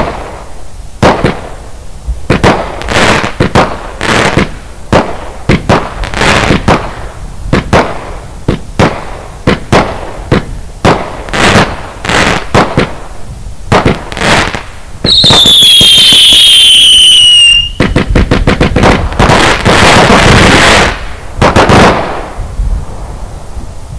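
Lesli Fireworks 'Texas Tornado' consumer firework cake firing a steady string of shots, each a sharp bang, roughly one every half second to a second. About fifteen seconds in, a loud falling whistle lasts a couple of seconds. It is followed by a rapid volley of shots and a few seconds of dense, continuous bursting noise.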